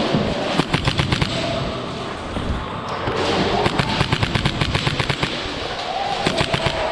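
Airsoft gunfire in close quarters: quick runs of sharp shots, a short burst about half a second in and a longer string of rapid shots from about three seconds in, with BBs cracking against plywood walls.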